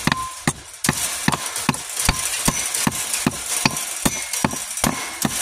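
Hand hammer tapping steadily on a deep-well socket and extension, driving a concrete anchor's locking pin home: a quick, even run of sharp metal-on-metal strikes, about two to three a second.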